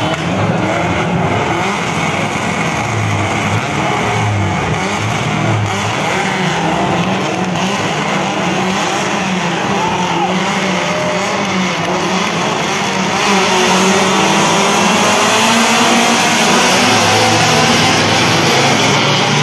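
Race car engines running hard on a circuit, with a continuous engine noise that grows louder a little past halfway through.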